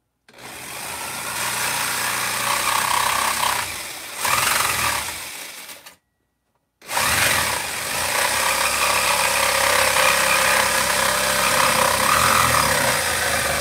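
A small handheld power saw cutting along the edge of a model railroad layout's fascia. It runs in two long stretches, with a sudden break of under a second about six seconds in.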